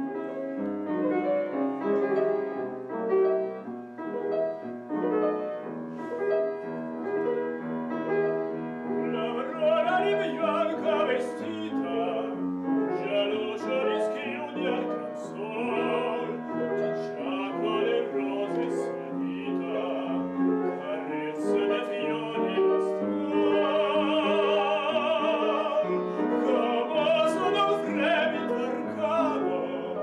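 A grand piano plays an introduction, then a man's trained classical voice comes in about nine seconds in, singing with vibrato over the piano accompaniment.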